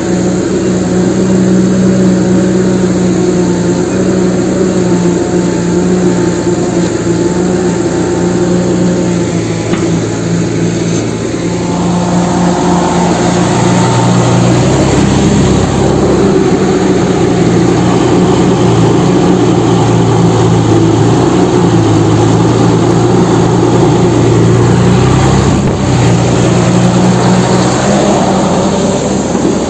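A heavy machine's engine running steadily, an engine sound effect laid over the play. About twelve seconds in, its note shifts and then wavers up and down.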